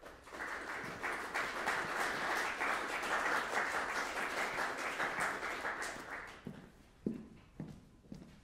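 Concert audience applauding, the clapping dying away about six seconds in. A few low thuds of footsteps on the stage follow near the end.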